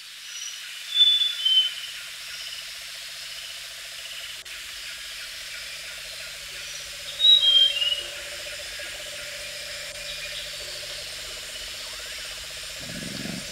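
Outdoor nature ambience: a bird gives a few short, falling whistled calls about a second in and again about seven seconds in, over a steady insect drone. A low sound swells in near the end.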